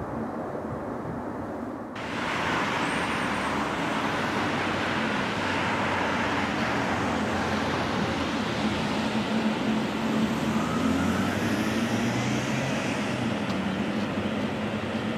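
Boeing 777-300ER jet engines (GE90-115B): a distant low rumble from the jet climbing away, then suddenly a closer, brighter steady rush and whine of the engines at low power as the airliner taxis and turns to line up on the runway.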